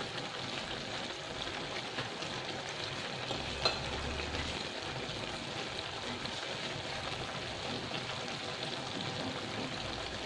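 Vegetable and shrimp stew boiling in a wok on a gas stove, a steady sizzle and bubble. A single light click a little under four seconds in.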